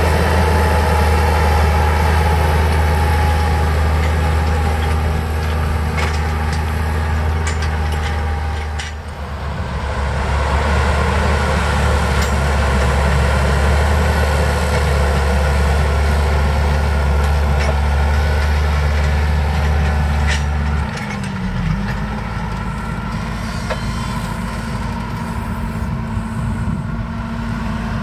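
Fendt 720 Vario tractor's six-cylinder diesel engine running steadily under load while pulling a subsoiler through the soil, a deep drone that falls off about three-quarters of the way in.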